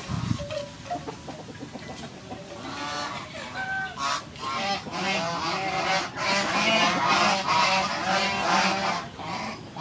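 Farm fowl calling, a quick series of calls that grows busier and louder from about four seconds in.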